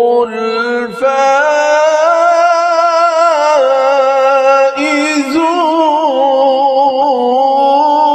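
Male reciter chanting the Quran in melodic tajweed style, drawing a word out over long, wavering held notes with ornamented turns in pitch; a new phrase begins about a second in.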